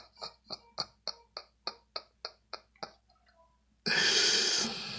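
A man's voice in a string of short, evenly spaced sounds, about three a second, that fade away over about three seconds. About four seconds in, a sudden loud rush of noise lasts about a second.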